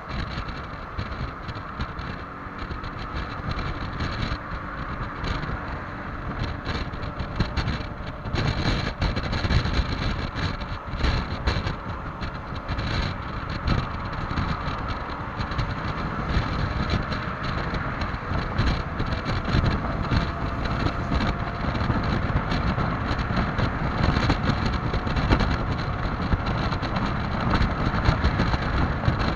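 Heavy wind buffeting the microphone at high speed on a Yamaha XMAX 300 scooter, with the drone of its single-cylinder four-stroke engine underneath. The sound grows gradually louder as the scooter pushes toward top speed.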